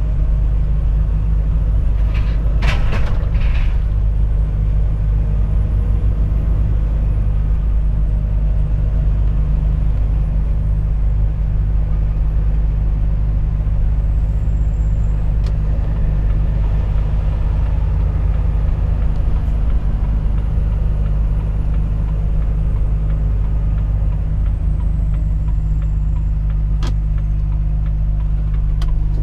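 Volvo FH 460 truck's diesel engine droning steadily while driving, with a short cluster of clicks about three seconds in and a few single ticks later.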